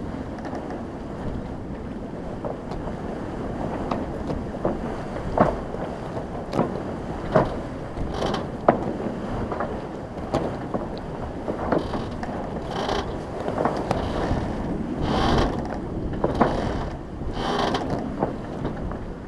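Sailing catamaran under way: a steady wash of water and wind, with scattered sharp clicks and knocks from the rigging and deck fittings, and a few brief splashes of water in the second half.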